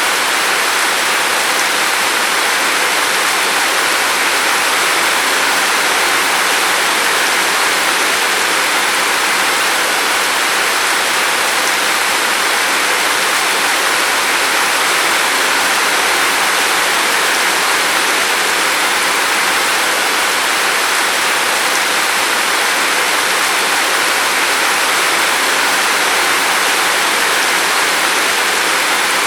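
Steady rain: an even hiss, strongest in the upper range, with no single drops, thunder or changes.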